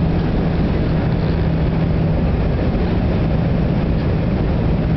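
Jet airliner cabin noise: a steady, loud drone of engines and rushing air, with a constant low hum underneath.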